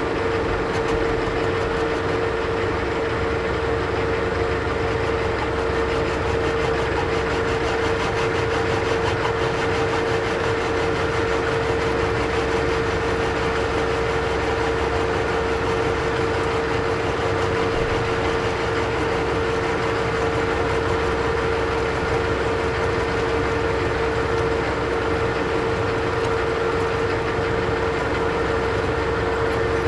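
Old Monarch engine lathe running steadily, its geared headstock giving a constant whine over an even mechanical rumble.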